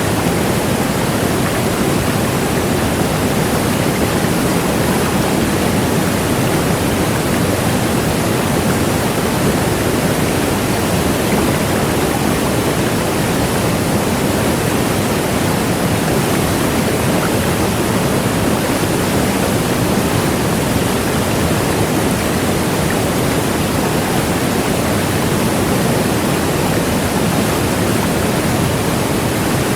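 A large waterfall's water falling steadily: a dense, even rushing noise, heaviest in the low and middle range, without change.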